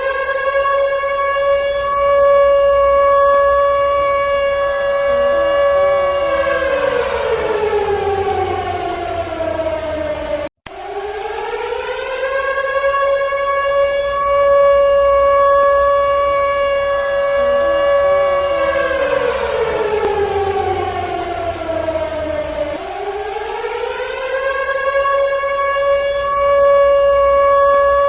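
Civil defense siren wailing in slow cycles, sounding a nuclear attack warning: the pitch rises, holds a steady tone for about five seconds, then falls away, and the cycle starts again about every 11 seconds. The sound cuts out for an instant about ten seconds in.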